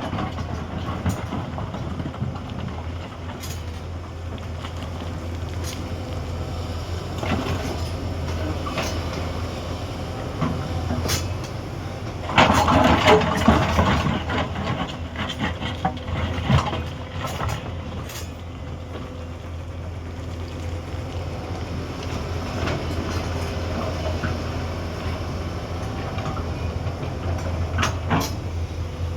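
Hyundai 210 excavator's diesel engine running steadily under work, with scattered clanks and knocks. A louder burst of grinding noise lasts a second or two about twelve seconds in.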